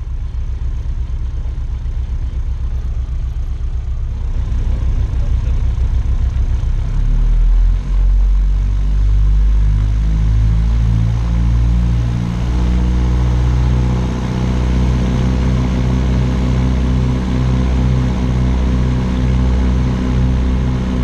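The de Havilland DH90 Dragonfly's twin Gipsy Major four-cylinder engines, heard from inside the cockpit, opening up over the first several seconds, then running steadily at full takeoff power.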